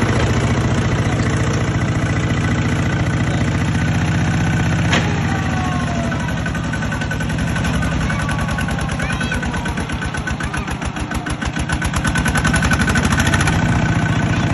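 Kubota bulldozer's diesel engine running steadily, with one sharp click about five seconds in. From around nine seconds the engine note turns into a fast even pulsing and dips in level, then steadies again near the end.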